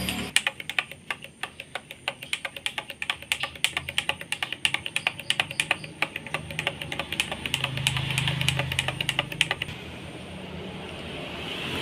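A metal spoon clinking against a drinking glass while stirring a drink: rapid clinks, several a second, that stop a couple of seconds before the end.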